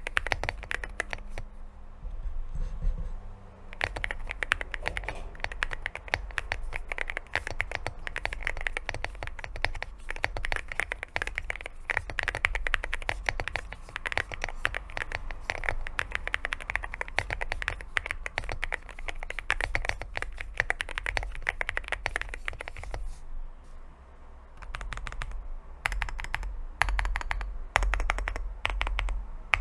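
Fast typing on an AKKO MU 01 mechanical keyboard with a walnut wood case and stock, unlubricated Akko Piano Pro V3 linear switches. The keys clack in dense runs, ease off briefly about three-quarters of the way in, then come back as slower, separate heavier strokes. The sound is even, with no dominant spacebar or spring ping.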